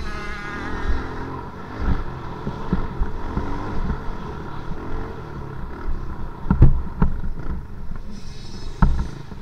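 Motocross dirt bike engines revving, rising in pitch over the first second or so, over a steady low rumble. Sharp thumps come about two-thirds of the way through and again near the end.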